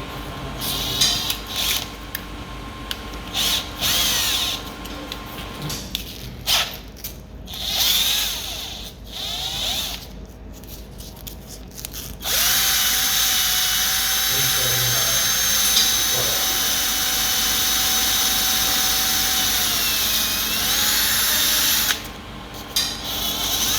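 A small motor running in several short bursts, then steadily for about ten seconds with a whine that dips in pitch shortly before it stops.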